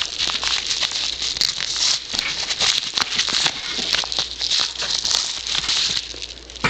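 A yellow paper mailer envelope being handled and opened: continuous rustling and crinkling with many small sharp crackles, easing briefly near the end.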